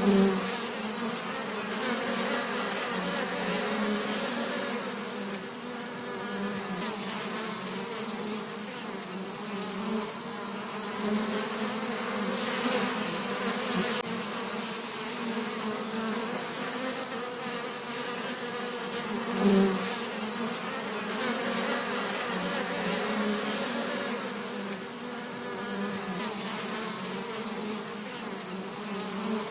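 Bees buzzing: a continuous, low-pitched drone that swells and fades as they pass, with brief louder surges near the start and about two-thirds of the way through.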